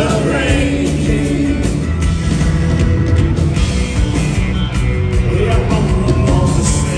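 A rock band playing live over a loud PA, with electric guitar, keyboards and drums, and a singing voice coming through at times.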